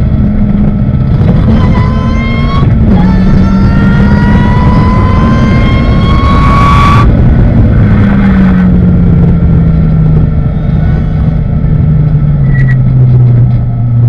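Ariel Atom race car's engine heard onboard at speed. The engine note climbs, drops once about three seconds in as it shifts up, and climbs hard again until about seven seconds in. There it lifts off sharply and the pitch falls steadily as the car slows into a corner, over constant wind and road noise.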